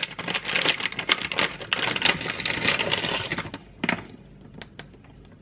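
Plastic bag crinkling in rapid crackles as a part is unwrapped from it, stopping about three and a half seconds in, followed by a few faint ticks.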